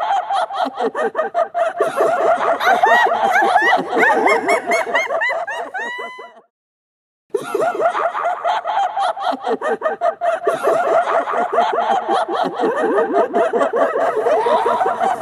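Many overlapping voices snickering and cackling in a dense layered chorus. It fades away about six seconds in, leaves about a second of silence, then cuts back in suddenly.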